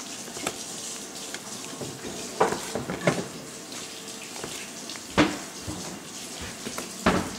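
Kitchen knife cutting slices off a block of cheddar cheese, the blade knocking sharply on the wooden board several times, a second or two apart, the loudest about five seconds in and near the end, over a steady hiss.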